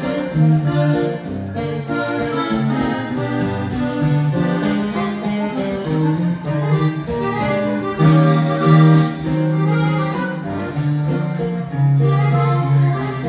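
Instrumental Tejano conjunto music: a twelve-string bajo sexto picked and strummed, with accordion playing along.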